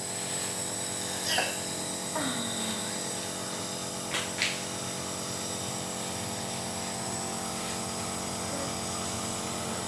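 Nebulizer's electric compressor running with a steady motor hum during a nebulizer treatment for a child's cough. A few short faint sounds break in during the first half.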